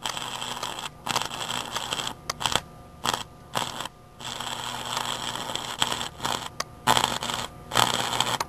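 Stick-welding arc from a homemade microwave-oven-transformer welder burning a 6013 rod on mild steel: a loud crackling hiss that cuts out abruptly and restarts about eight times, in stretches from a fraction of a second to a couple of seconds long.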